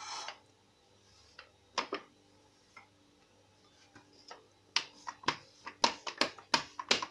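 Stainless-steel rolling pin with plastic handles rolling out a square of dough on a marble counter, making a quick run of sharp clicks and knocks, several a second, that begins past halfway.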